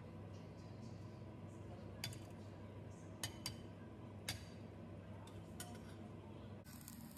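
A metal spoon clinking against a glass bowl of beaten egg: four sharp clinks, two of them close together, over a steady low hum.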